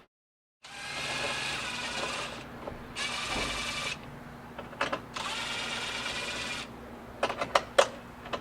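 Power drill running in three bursts of one to two seconds each, followed by a few sharp clicks near the end.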